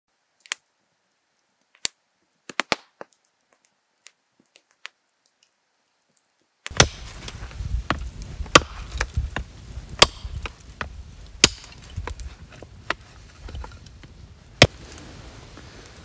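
Campfire wood crackling with a few sharp pops, then a hatchet chopping and splitting kindling on a wooden stump, with a sharp chop every second or two and lighter knocks between.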